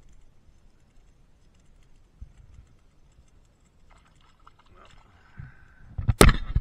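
Faint handling and water noise, then one sudden loud hit at the water's surface about six seconds in, with water spraying up.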